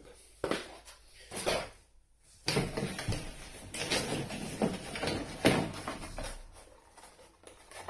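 Packaging being handled during an unboxing: a few short knocks in the first two seconds, then several seconds of continuous rustling and scraping of box and wrapping, with small clicks.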